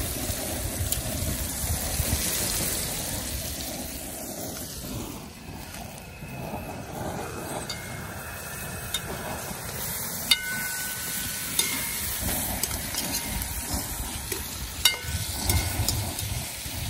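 Meat and onions sizzling as they fry in a large pot on a propane burner, over a steady low rumble. A few sharp clinks of a metal slotted spoon against the pot come in the second half as the meat is stirred.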